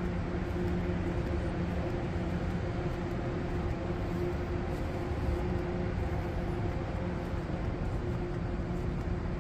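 Steady mechanical hum over a low rumble, with a constant drone that holds the same pitch throughout.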